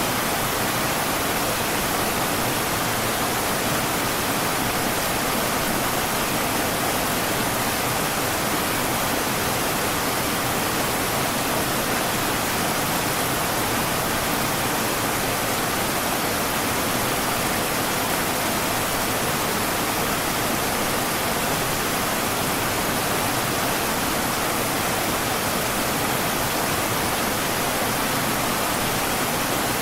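River water rushing steadily, an even wash of noise with no breaks.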